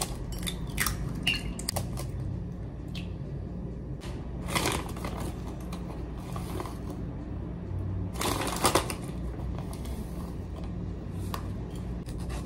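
An egg cracked against a ceramic plate, a few sharp clicks, followed by a clear plastic bag of oat flour crinkling twice as the flour is tipped out onto the plate. A low steady hum lies underneath.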